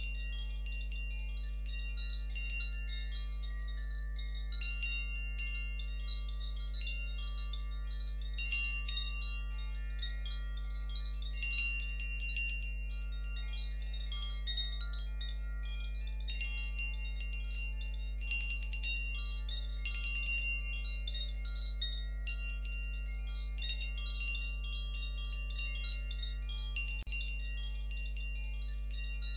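Wind chimes tinkling in irregular clusters of high, ringing notes over a steady low drone, as in a meditation soundtrack.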